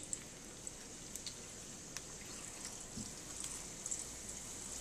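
Corn tortillas frying in shallow hot oil in a skillet: a faint, steady sizzle with scattered small pops, and a soft knock about three seconds in.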